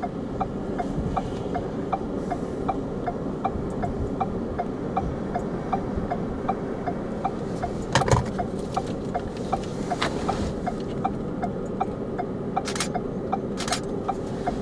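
Steady low rumble of a vehicle running while stopped, with an even ticking about three times a second and a few short rushes of noise in the second half.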